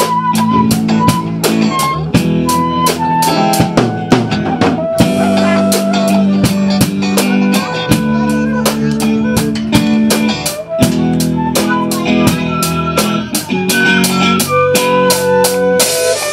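Live band playing: a drum kit keeps a steady beat of about four hits a second under electric guitar, and a saxophone plays held notes near the end.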